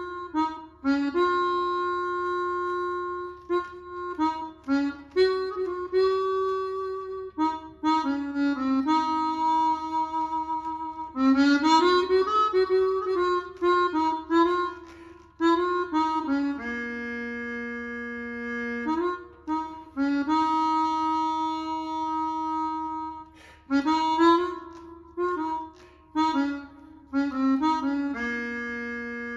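Roland AE-20 Aerophone digital wind instrument playing a solo melody, one note at a time, in phrases broken by short pauses, over a faint low hum.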